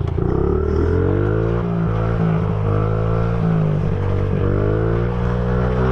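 Pit bike engine running under steady throttle while being ridden, its pitch dipping and rising slightly a couple of times.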